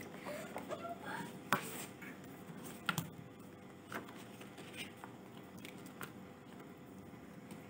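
Faint handling noises of a hardback book and its card covers: light rustling of paper and card with a few sharp taps, the clearest about a second and a half in and again about three seconds in.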